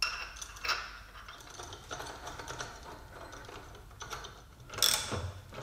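Socket ratchet clicking as it turns the forcing screw of a bearing puller under heavy load, drawing a differential pinion bearing, with sharper metallic clacks about half a second in and again near the end.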